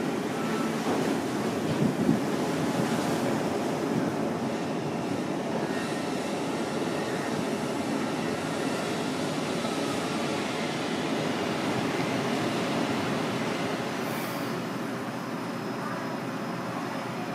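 Steady low rumbling background noise with a faint steady hum, and a single knock about two seconds in.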